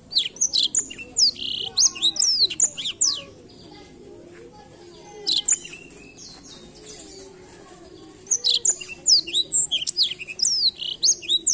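Blackthroat (black-throated canary) singing fast twittering phrases of quick rising and falling high notes: a long phrase at the start, a short one about halfway, and another long phrase near the end.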